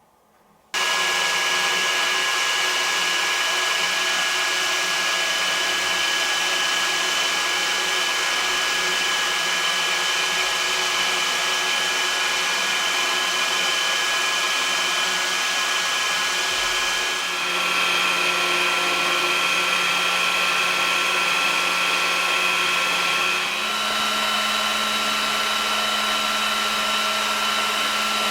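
Scale RC AH-64 Apache helicopter's electric motor and rotors running with a steady whine and hiss. It starts suddenly about a second in, and its pitch shifts abruptly twice.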